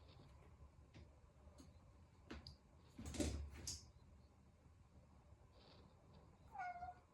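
A house cat gives one short, falling meow near the end, after a few light taps and a louder brief scuffling noise about three seconds in.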